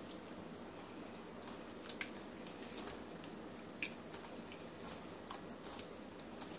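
Wet squelching of a hand working raw mutton pieces through a thick spice marinade in a steel bowl, with a few sharp clicks.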